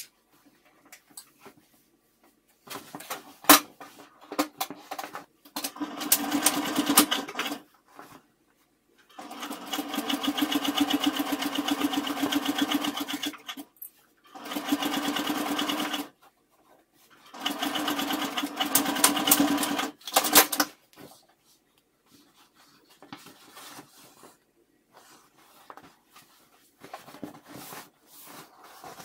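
Electric sewing machine stitching a seam through layered fabric in four runs of a few seconds each, stopping and starting again, with a sharp click about three seconds in. Fainter fabric handling follows near the end.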